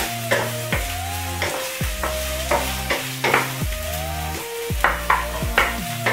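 Chopped onions sizzling in a frying pan while a wooden spoon stirs and scrapes them, with sharp strokes about three times a second. Background music with a bass line and a gliding melody plays over it.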